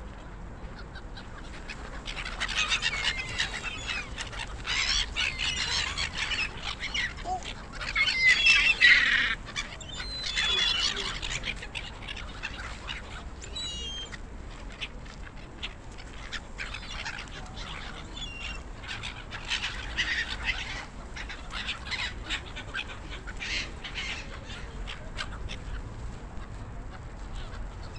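A flock of gulls calling over water, many harsh overlapping cries at once. The calling is thickest in the first ten seconds or so, loudest a little before the middle, then thins to scattered calls.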